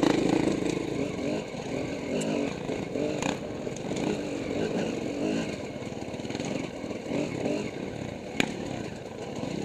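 Dirt bike engine running under riding load, its pitch rising and falling again and again as the throttle is worked. A sharp knock stands out a little over eight seconds in.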